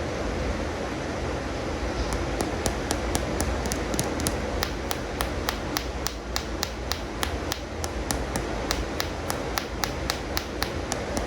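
Light tapping on animal toy figures, several quick taps a second, starting about two seconds in, over a steady hiss.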